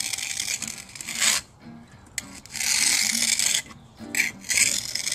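Trowel scraping and smoothing wet vinyl concrete patching mix on a step, in several rasping strokes about a second long each, with faint guitar music underneath.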